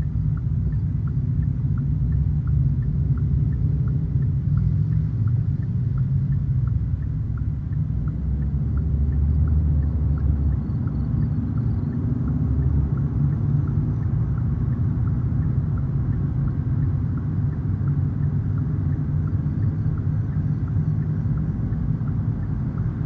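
Steady low rumble of a vehicle travelling at road speed, with a faint, regular ticking about twice a second.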